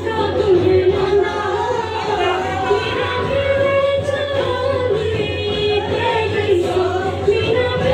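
A loud song with a singing voice carrying a wavering melody over a steady low accompaniment, played as dance music.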